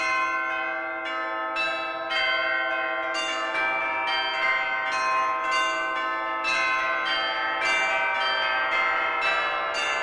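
Church bells ringing a continuous peal, many bells struck one after another, a few strikes each second, overlapping as they ring on.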